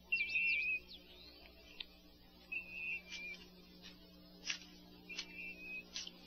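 Faint birdsong: a short trilled call repeated about every two and a half seconds, with quick downward-sweeping chirps near the start and a few sharp clicks in between.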